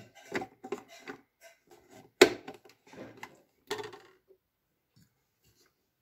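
Hard plastic parts of a Moulinex electric vegetable grater clicking and knocking as they are fitted together, with one loud snap about two seconds in. The clicking stops about four seconds in.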